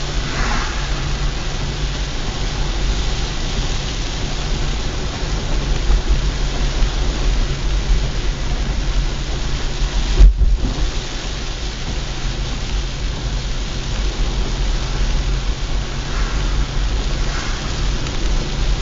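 Heavy rain drumming on a moving car, heard from inside the cabin, over a steady low road and engine rumble. A single sharp low thump about ten seconds in.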